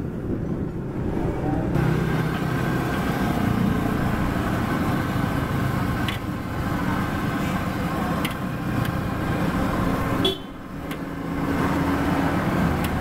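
Hot oil sizzling in a wok as sesame-coated onde-onde balls deep-fry, with a few light clicks of the wire skimmer stirring them, over steady street traffic noise.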